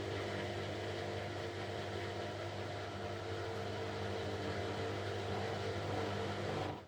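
Kunft washing machine running with a steady motor hum and a wash of noise; the sound stops abruptly near the end.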